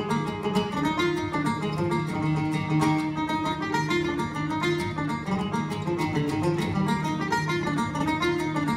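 Banjo picking a fast Irish traditional tune in a quick run of notes, with acoustic guitar accompaniment underneath.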